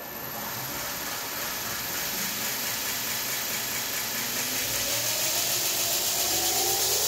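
Knife maker's belt grinder's electric motor starting up on its freshly replaced inverter and gathering speed, getting steadily louder, with a thin high whine over the running noise. From about four or five seconds in, rising tones mark the motor and belt speeding up as the inverter turns it up.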